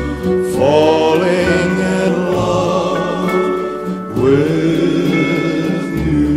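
Music with a voice singing long held notes in two phrases, the second beginning about four seconds in.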